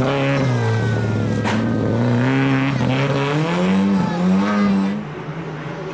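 Lada 2107 Group A rally car's four-cylinder engine revving hard as it accelerates out of a corner. Its pitch climbs and drops back several times with the gear changes, with one short sharp crack about one and a half seconds in. The sound falls away near the end as the car drives off.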